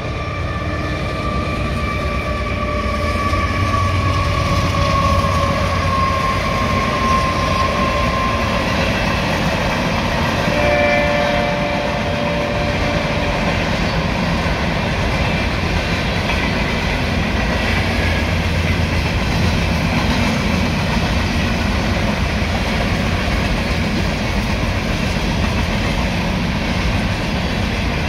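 Union Pacific freight train passing behind GE diesel locomotives. A locomotive horn sounds for about eight seconds, its pitch sliding slightly down, and a shorter horn note follows around eleven seconds in. After that comes the steady rumble and clatter of covered hopper cars rolling by.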